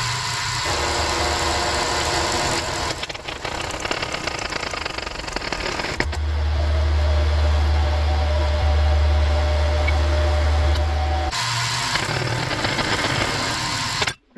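Powered hydraulic shop press running while its ram presses a wheel hub bearing out of a steering knuckle. The motor's low hum comes and goes, with a sharp click about six seconds in, and the hum stops about three seconds before the end while a steadier noise carries on.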